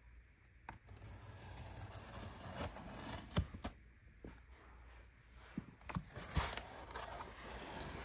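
Cardboard shipping box handled and opened by hand: cardboard rubbing and scraping, with a few sharp taps, the loudest a little over three seconds in and again about six seconds in.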